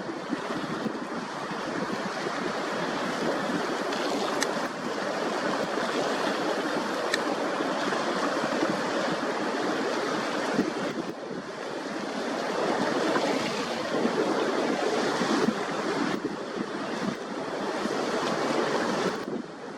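Rushing water and wind buffeting the microphone, as from a boat under way on open water. It is a steady, rough noise with no engine tone standing out. It dips briefly about halfway through and cuts off sharply near the end.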